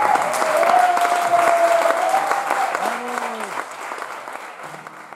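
Audience applauding, with a few voices calling out over the clapping. The applause dies away over the last two seconds.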